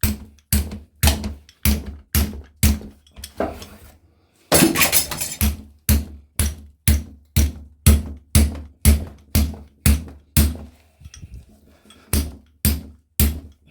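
Repeated metal-on-metal hammer blows, about two a second, cutting a compressor motor's steel stator in half, with a longer scraping rasp about four and a half seconds in.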